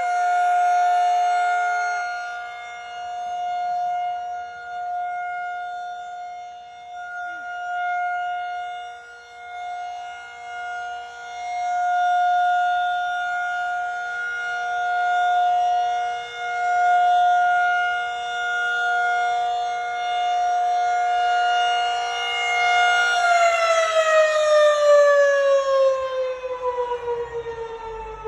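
Federal Signal 2001-SRN rotating outdoor warning siren sounding a steady tone on test, swelling and fading every few seconds as it turns. About 23 seconds in it begins winding down, its pitch falling steadily.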